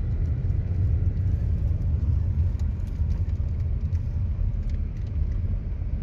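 Steady low rumble of a car driving along a road, heard from inside the cabin, with a few faint ticks.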